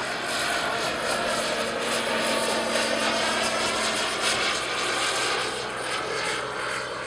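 Radio-controlled scale model helicopter flying overhead, its engine and rotor running steadily.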